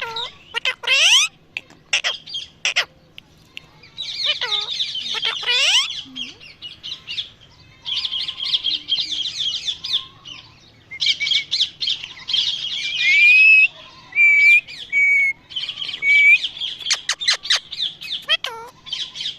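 Parrot squawking and chattering in harsh bouts of a second or two, with a few steeply falling swoops and some short clear whistles around the middle, and a run of quick clicking notes near the end.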